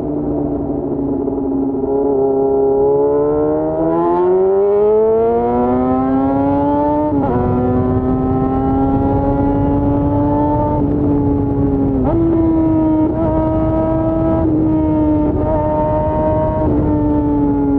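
Yamaha FZ6's inline-four engine under way through the gears. The revs climb for a few seconds, then drop sharply at a gear change about seven seconds in. They hold and rise slowly, jump up at about twelve seconds, then ease off near the end.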